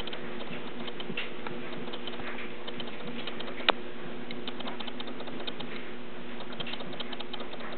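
Small irregular clicks and scrabbling of pet claws on a hard surface, with one sharper click about halfway through.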